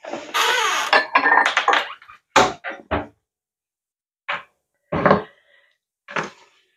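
Kitchen handling noises: about two seconds of scraping and rustling, then six short separate knocks as a small ceramic ramekin and a knife are handled and set down on a wooden cutting board.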